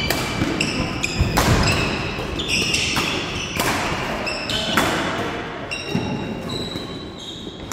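Badminton rally: rackets strike the shuttlecock about once a second, each hit a sharp crack with echo from the hall. Between the hits, players' shoes squeak briefly on the wooden court.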